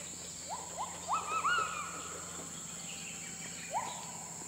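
Gibbons calling: five quick rising whoops in the first second and a half, then one more near the end, over a steady high-pitched drone.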